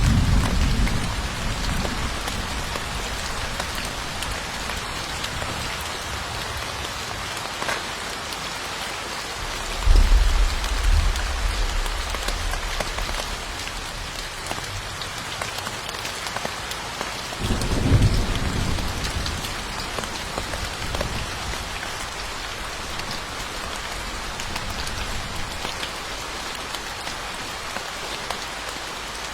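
Steady rain falling on surfaces, with low rolls of thunder: one fading away at the start, one breaking suddenly about a third of the way through, and another about two-thirds of the way in.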